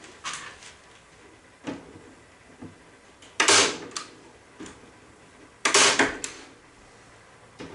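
Wire hardware cloth being pulled tight over a wooden hive frame and fastened to it: light clicks and rattles of the mesh, then two loud metallic clacks about two seconds apart, each followed by a lighter click.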